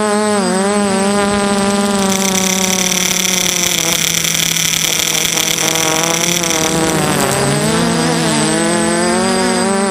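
DJI F330 quadcopter's brushless motors and propellers buzzing, heard from the camera mounted on the frame; the pitch wavers with the throttle. A higher whine joins about two seconds in and stops near seven seconds, when the pitch dips and then climbs back.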